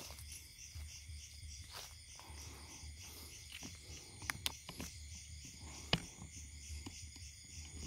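Crickets chirping in a steady, evenly pulsing chorus. A few sharp clicks come in the second half, the loudest about three quarters of the way through.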